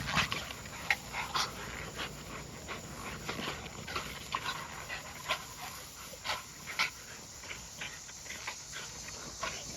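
American bully dogs panting hard in irregular short breaths, out of breath from biting and tugging in the heat.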